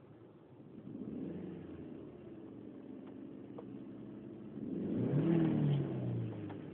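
2002 Audi A4 1.8T turbocharged four-cylinder car at startup: a running sound comes in about a second in, then a louder droning about five seconds in whose pitch falls over a second or so. This is the intermittent strange startup noise that the owner hears from the rear of the car.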